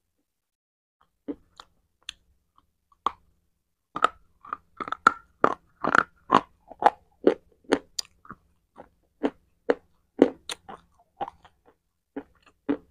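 Close-miked crunching and chewing of something hard in the mouth, with a lapel microphone held against the lips. A few crunches come about a second in, a quick run of crunches follows through the middle, and they thin out near the end.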